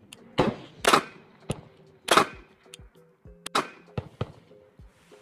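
Ruger LCP II .22 LR micro pistol firing four shots at uneven gaps, each a sharp crack with a short tail, over background music.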